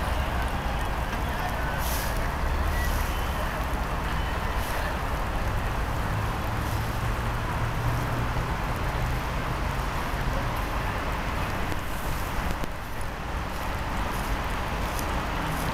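Steady city ambience: a low rumble of distant traffic under a hiss of rain, with scattered faint ticks.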